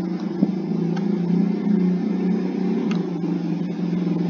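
A steady low mechanical hum, engine-like, with a couple of faint clicks: one about half a second in, another about three seconds in.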